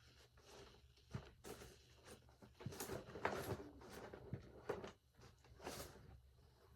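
Faint rustling and a few light knocks of objects being handled while rummaging under a table for a Play-Doh container.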